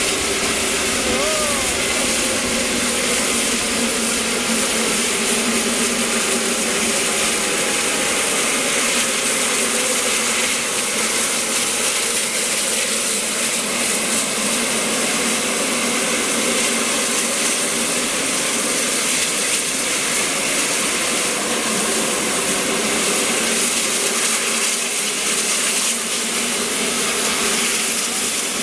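Peppercorn A1 Pacific steam locomotive 60163 Tornado hissing steam steadily and loudly, with a low steady hum beneath.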